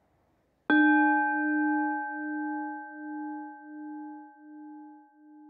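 A single struck metal bell tone, hit once about three-quarters of a second in and ringing on with a slow pulsing wobble as it fades.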